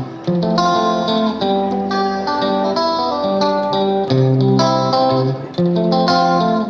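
Slow instrumental background music led by a guitar, playing ringing notes and chords that change every half second to a second.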